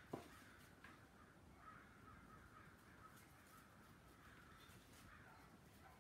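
Near silence: room tone, with one soft tap just after the start and a faint wavering high sound in the background.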